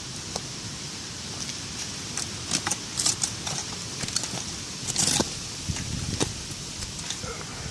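Shards of broken glass clinking and clattering as they are dug through and handled, a run of sharp clinks with the loudest around three and five seconds in.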